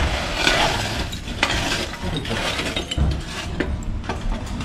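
Red-hot lumps of charcoal being shifted in a sunken hearth with a metal shovel and tongs: a scraping rustle in the first second, then scattered sharp clinks and knocks of charcoal and metal.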